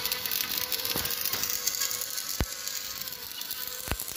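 Stick (shielded metal arc) welding on steel: the electrode's arc crackling and sizzling steadily over a steady hum, with a few sharper pops.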